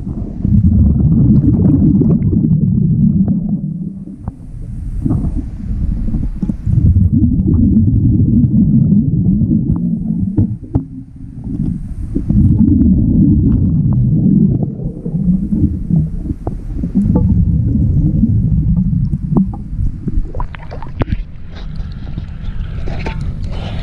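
Underwater breathing of a diver on a regulator: exhaled air bubbles rumbling low in long bursts every four seconds or so, with scattered small clicks and knocks. About twenty seconds in the sound turns to splashing as the diver comes up at the surface.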